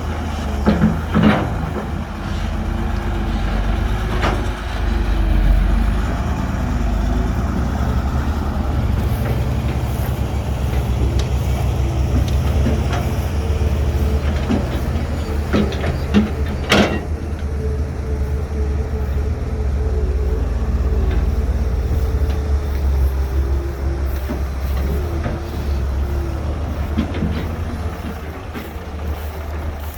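Heavy diesel construction machinery running steadily with a deep rumble and a wavering whine, broken by a few sharp metallic clanks, the loudest about seventeen seconds in.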